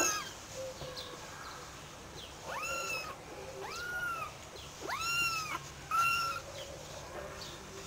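Young kittens mewing: about four thin, high-pitched mews, each bending up and then falling away, spaced a second or so apart from about two and a half seconds in.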